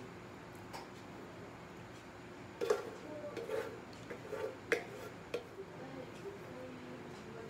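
Metal bread-machine pan being handled as dough is turned out onto a counter: a cluster of knocks and clunks a few seconds in, then quieter sounds of hands working the dough.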